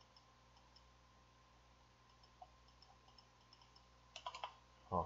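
Faint computer keyboard keystrokes as a spreadsheet formula is typed: a few scattered light taps, then a quick run of sharper clicks about four seconds in.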